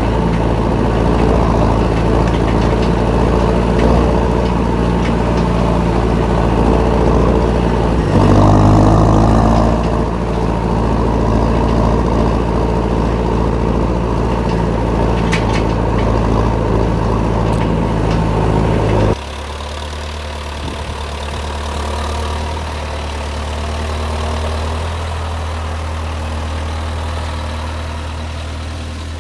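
John Deere 6430's four-cylinder diesel engine running, heard close to its exhaust stack, briefly louder about eight seconds in. Near two-thirds through, the sound changes abruptly to a quieter, deeper engine note of the tractor pulling a trailer of wrapped bales.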